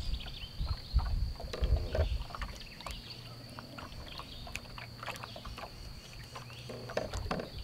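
Waterside ambience: faint bird chirps and scattered light clicks and knocks over a steady thin high whine, with wind rumbling on the microphone in the first two seconds.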